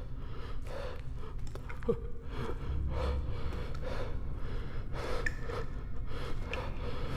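A person breathing hard in quick gasps, about two breaths a second, over a steady low rumble.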